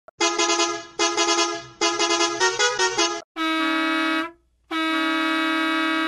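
Bus horn blowing: three blasts, the third wavering in pitch, then two long steady blasts at a slightly lower pitch.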